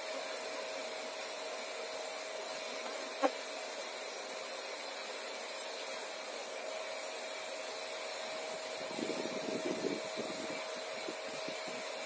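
A bee vacuum's motor running steadily: an even whir of rushing air with a faint steady hum. A single short knock comes about three seconds in.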